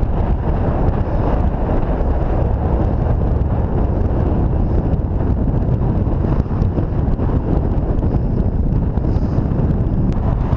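Strong wind buffeting the microphone on an exposed moorland summit: a loud, steady, low rumble.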